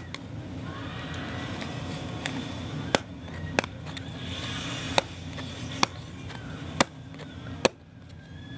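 Plastic toy packaging being handled and opened close to the microphone. It gives sharp clicks and snaps at uneven intervals, roughly one a second, over a low steady background noise.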